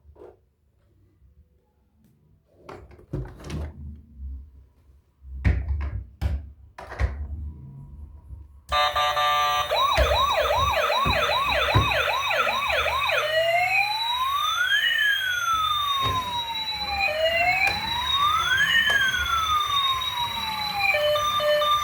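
A few scattered knocks and clicks, then about nine seconds in a toy emergency vehicle's electronic siren switches on loud. It gives a fast yelp of quick repeated sweeps, about two and a half a second, then a slower wail rising and falling, and near the end steady beeping tones.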